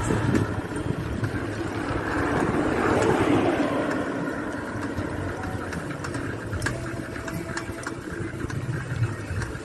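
Steady engine and road noise of a slowly moving vehicle, with another car passing close by about three seconds in, its sound swelling and then fading.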